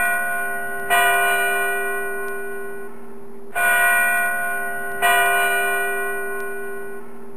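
A single church bell tolling, struck three times at uneven intervals. Each stroke rings on and slowly fades into the next.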